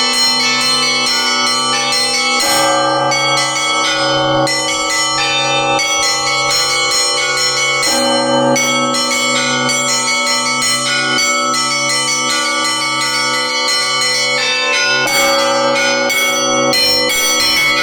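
Russian-style set of bells rung in a festive peal: small treble bells struck in quick, dense patterns over a deep bell struck at a steady beat about once a second.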